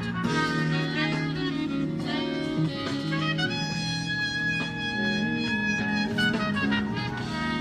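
Instrumental background music with brass, in a jazzy style: held and moving notes with no speech over it.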